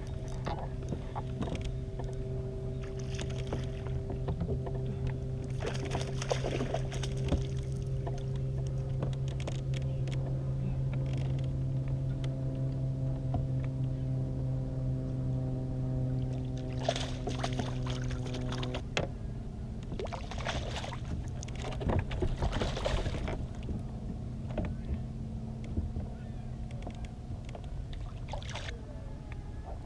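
Kayak on the water: splashing and water wash, with a few louder splashes, over a steady low hum.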